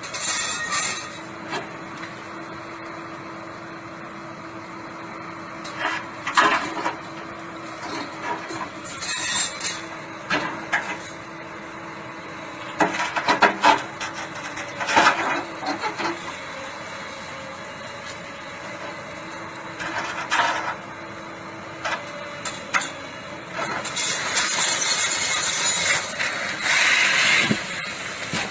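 Backhoe loader engine running steadily under load while it works a huge boulder. Irregular loud bursts of scraping and knocking come from the rock and bucket, with the longest and loudest stretch near the end.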